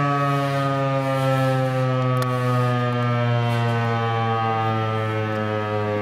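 Equinox outdoor warning siren sounding a steady, loud, many-toned note that slowly sinks in pitch.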